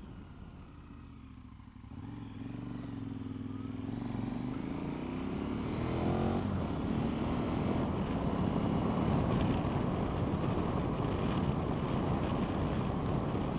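Motorcycle engine accelerating, its pitch rising steadily until a gear change about six seconds in. After the shift a dense wind rush on the microphone builds with road speed and largely covers the engine.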